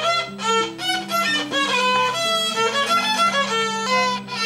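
Violin music: a melody of quick, even notes over a held low note.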